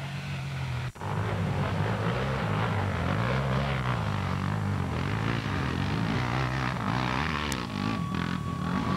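Dirt bike engines revving, the pitch rising and falling again and again as the throttle is worked. Near the end a thin steady high tone sounds over them.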